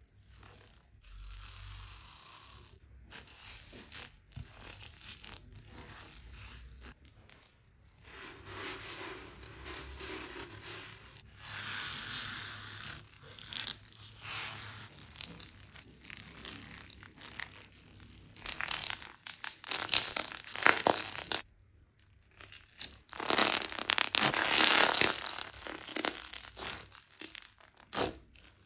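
Hands squishing, pressing and squeezing slime, some of it packed with foam beads: sticky wet squelches with a dense crackle of small pops and clicks, louder in two stretches in the second half.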